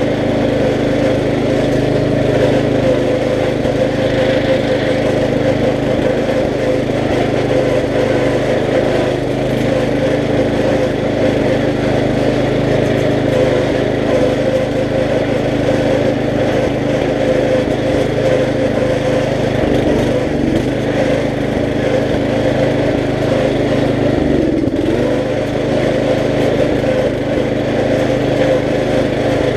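Riding lawn mower engine running steadily under way, with a brief dip in pitch and level about three-quarters of the way through.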